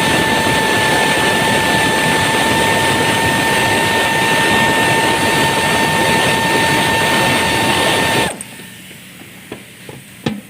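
A steady machine hum with a hiss and a constant high whine, cutting off abruptly about eight seconds in, followed by a few faint clicks and knocks.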